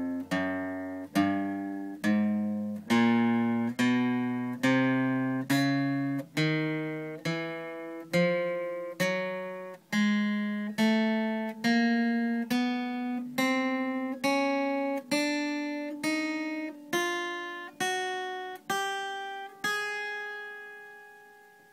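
Acoustic guitar playing the 1-2-3-4 chromatic exercise with alternate picking: single plucked notes on frets one to four of each string in turn, from the low strings up to the high ones, at a steady pace a little faster than one note a second, the pitch climbing step by step. The last note rings out and fades near the end.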